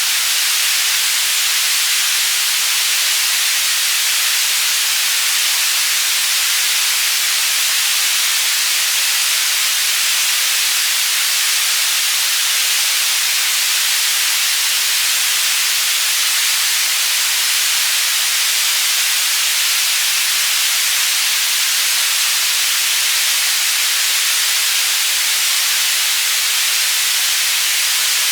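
Synthesized white noise for tinnitus masking, panned between the stereo channels: a steady, even hiss, strongest in the treble with little low end.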